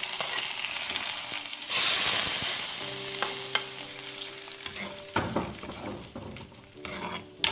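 Hot coconut-oil tempering of mustard seeds, dried red chillies and curry leaves sizzling, with a fresh, louder burst about two seconds in as it is poured into the yogurt-based okra kichadi, then dying away steadily as the oil cools, with a few light spoon-and-pan clicks.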